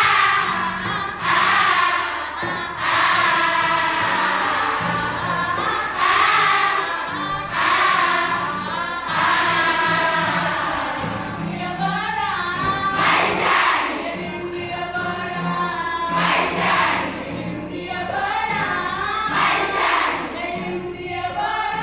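A classroom of schoolgirls singing together in a loud chorus, with a steady rhythmic low part under the voices.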